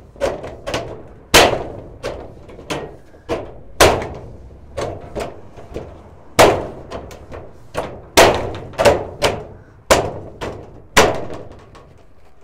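Steel shed channel being tapped along the edge of a corrugated steel wall panel to snap it over the lugs and lock it in place. An irregular run of sharp knocks, about two a second, each with a short metallic ring.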